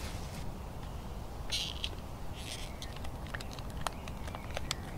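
Plastic fruit-puree pouch and its screw cap being handled: a couple of short crinkles, then a run of small sharp plastic clicks. A steady low hum of distant traffic and wind sits underneath.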